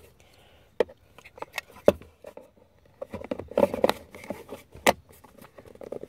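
Hard plastic clicks, taps and rustling as an AUX input jack module is handled and snapped into its opening in the centre console, with a sharper snap near the end.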